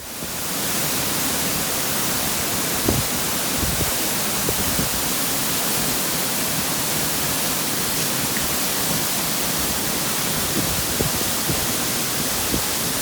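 Waterfall pouring with a steady, loud rushing hiss that fades in at the start.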